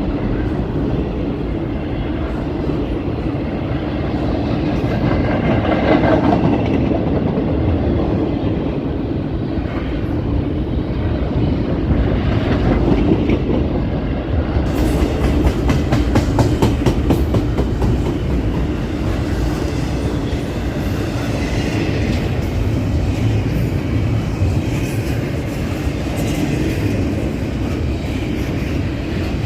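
Intermodal freight train rolling past, its wagons' steel wheels rumbling and clacking over the rail joints in a steady, continuous run. The clacking grows busier and sharper about halfway through.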